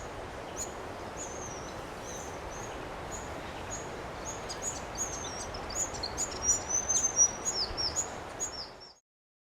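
Wild birds calling over a steady outdoor background hiss: many short, high calls, some sweeping down in pitch. The calling grows busier and louder about halfway through, then the sound cuts off suddenly near the end.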